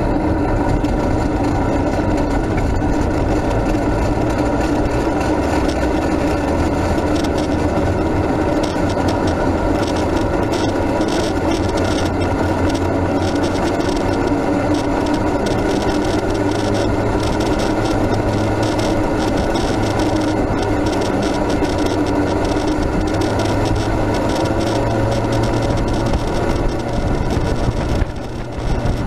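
Max II 6x6 amphibious ATV rolling on pavement under tow: a steady rumble of tyres and running gear with rapid, frequent rattles that come thick from about a third of the way in.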